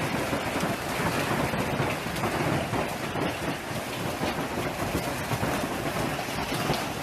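Hailstorm downpour of hail and rain pelting down: a dense, steady patter of countless small hits.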